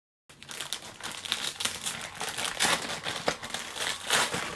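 Wrapping paper crinkled and torn open by hand on a small gift: a dense, papery crackle with louder rips about two and a half and four seconds in.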